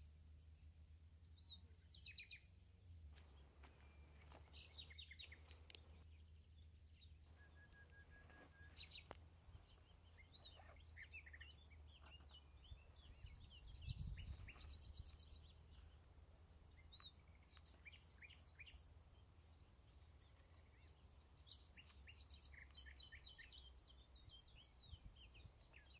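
Quiet woodland ambience: scattered short bird chirps over a faint steady low hum and a thin, steady high tone.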